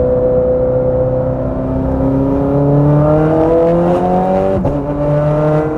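Straight-piped Ferrari 430 Scuderia V8 accelerating hard, its note climbing steadily in pitch, then an upshift about four and a half seconds in, after which it drops and climbs again.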